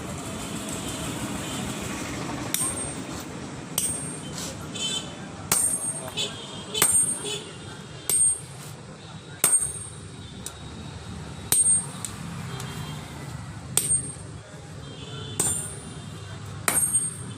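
Hand hammer striking steel on an anvil while forging a chisel: a ringing metallic blow every one to two seconds, starting about two and a half seconds in.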